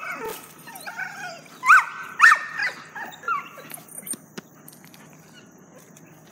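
A dog whining in a few short, high-pitched cries, the loudest two about two seconds in.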